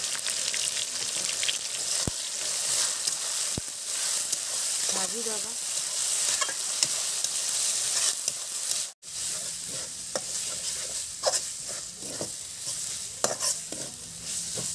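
Onions, ground masala paste and ginger paste sizzling in hot oil in a metal kadai, while a steel spatula stirs and scrapes against the pan in irregular strokes. The sound drops out for an instant about nine seconds in.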